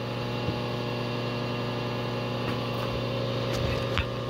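Milling machine running steadily with its motor hum, the end mill turning beside the steering shaft. A few sharp clicks and knocks come near the end.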